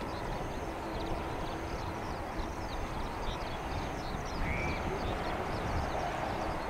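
Distant Boeing 787 airliner's jet engines rumbling as it rolls out on the runway after landing, the noise swelling slightly near the end, with birds chirping over it.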